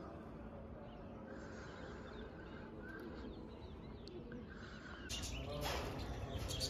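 Small birds chirping over a faint outdoor morning background, growing louder and busier about five seconds in.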